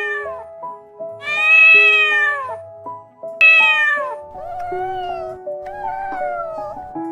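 A cat meowing again and again in long, drawn-out meows, the loudest about two and three and a half seconds in, with two shorter, fainter meows near the end. Soft background music with held notes plays underneath.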